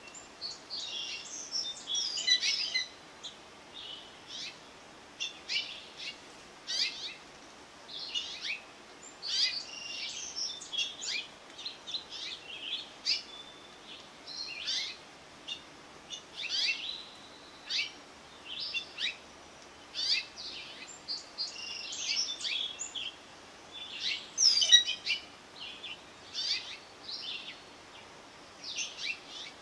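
Backyard songbirds chirping and singing, short high calls coming every second or so, with a faint outdoor hiss beneath.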